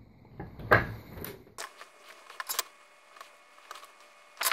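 Handling noise from soldering work on a wooden board: a knock under a second in, then scattered light clicks and taps, and a louder clatter at the very end.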